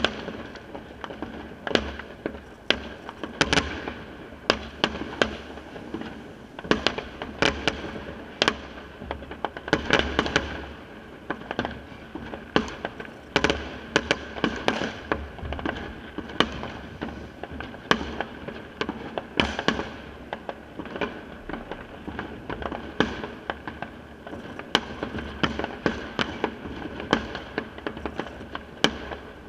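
Fireworks and firecrackers going off all around: a continual string of sharp bangs at irregular intervals, sometimes several in a second, none of them stopping for more than about a second.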